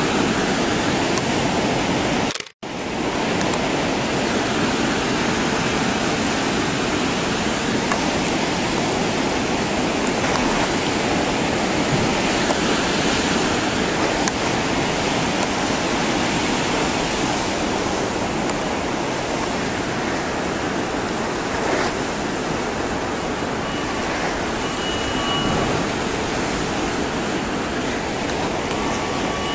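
Tsunami water surging through a harbour and pouring over a quay wall: a steady, loud rush of turbulent water. It cuts out briefly about two and a half seconds in.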